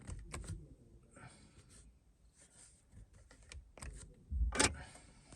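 Small plastic clicks and rustles of fingers working the car's steering-column stalk button and ignition, with a louder knock and low thud about four and a half seconds in.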